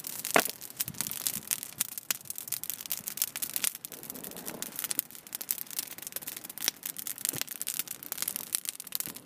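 Bow drill at work: a balsam fir spindle grinding against a wooden hearth board, a continuous scratchy rubbing full of small crackles.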